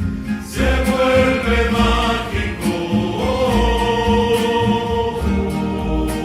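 Film soundtrack music: a choir sings sustained notes over a low, regular pulse.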